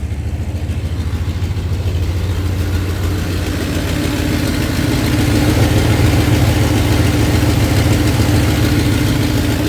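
Dodge 5.9-litre Magnum 360 V8 idling steadily at operating temperature. About two and a half seconds in, a steady higher hum joins in and the sound grows a little louder.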